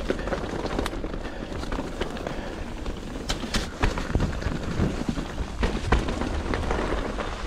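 Mountain bike descending rough, wet forest singletrack: a steady rumble of tyres over dirt and roots mixed with wind on the camera microphone, and a run of sharp clacks and rattles from the bike striking roots and rocks in the second half.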